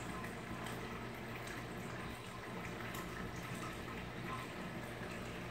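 Reef aquarium water circulating: a steady trickling, bubbling wash of water with faint drips and a low steady hum underneath.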